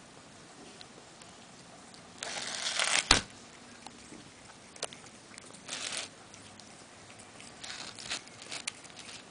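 A cat biting and tearing at blades of cat grass, giving crunchy, rustling bursts: a long one about two seconds in that ends in a sharp knock, then shorter ones near six and eight seconds, with scattered small clicks between.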